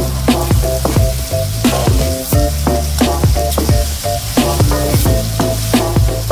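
Sliced sausages, onion and a ketchup-chojang sauce sizzling in an oiled wok while a metal spoon stirs them, with short scrapes against the pan. A light background tune of short plucked notes over a steady bass plays along.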